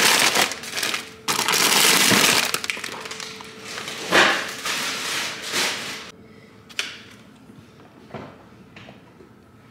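Groceries being handled and packed away: loud rustling and crinkling of bags and plastic packaging for the first two or three seconds, then a few separate knocks and crackles of plastic containers, growing quieter near the end.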